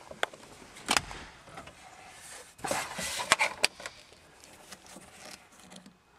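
Scattered plastic clicks and knocks with rustling from hands working a wiring connector and plastic dash parts behind a car radio, mixed with camera handling. The loudest knock comes about a second in, and a busier run of clicks follows near the middle.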